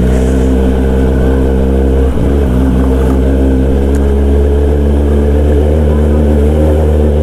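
Kawasaki ZX-10R's inline-four engine through an SC-Project exhaust, running loud at steady revs while riding, with a brief dip in the note about two seconds in.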